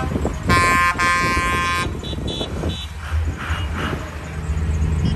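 A vehicle horn sounds one long steady blast, starting about half a second in and lasting about a second and a half, over the low steady hum of a running vehicle.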